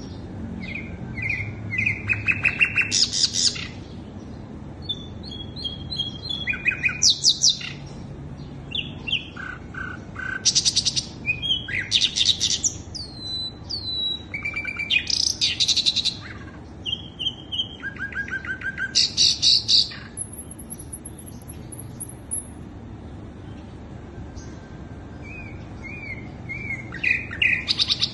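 Sikatan londo flycatcher singing in short, varied bursts of quick trills, chips and sliding whistles, with brief pauses between phrases, over a low steady background hum.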